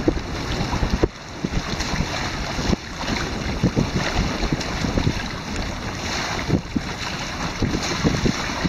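Wind buffeting the microphone in irregular gusts, over water rushing and splashing along the hulls of a Hobie Mirage Tandem Island sailing trimaran under way.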